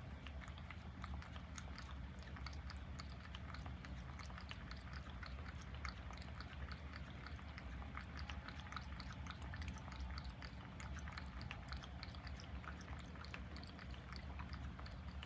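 American Shorthair cat lapping and chewing at its food or drink: a continuous run of small, quick, wet mouth clicks, over a steady low hum.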